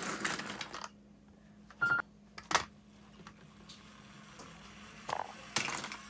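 A quiet gap holding a few sharp clicks and one short electronic beep near two seconds in, over a faint steady hum, with a brief rustle near the end.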